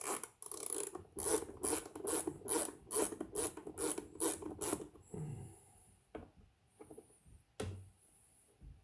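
Hand filing: quick back-and-forth rasping strokes, about three or four a second, stopping about five seconds in. A few light clicks and knocks follow.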